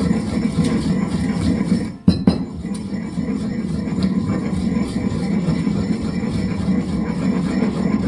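Stone pestle grinding whole allspice berries and spices in a stone mortar: a steady, rough grinding of stone on stone, with a brief break and a couple of sharp clinks about two seconds in.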